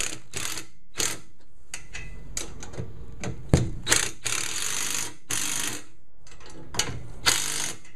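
Cordless impact driver with a long socket extension running nuts down onto the bolts of a galvanized steel roof-rack side-rail joint, rattling in several short bursts, the longest about four seconds in.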